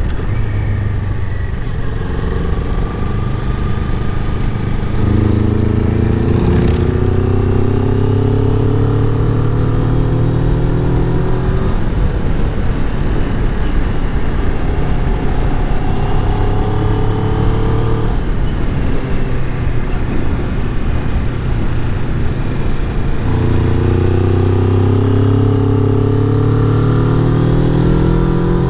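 Kawasaki Ninja 400's parallel-twin engine pulling uphill under throttle. The revs climb slowly in long pulls, fall back twice midway and climb again near the end, over steady wind rush.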